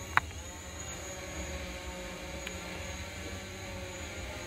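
Small camera drone hovering overhead: a steady propeller hum with a high whine. One sharp click about a quarter second in.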